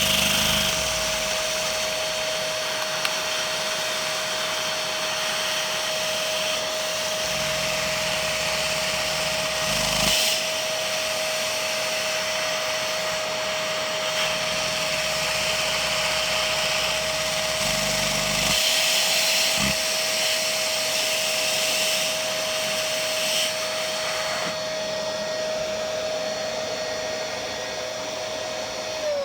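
A vacuum cleaner's motor runs steadily with a constant whine, sucking air through a Lego Technic dual-action single-cylinder vacuum engine as it runs. Right at the end the whine starts to fall in pitch as the motor slows.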